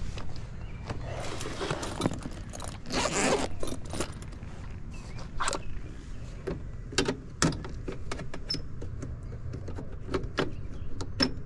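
Hand tools and meter leads being handled at an open air-conditioner condensing unit: a string of sharp clicks and taps with bursts of rustling, the loudest rustle about three seconds in.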